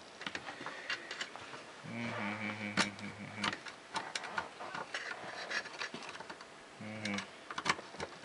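Scattered small clicks and taps of a screwdriver and hands working at the battery terminals and metal chassis of an opened UPS. A short low steady hum comes in about two seconds in, and again briefly near the end.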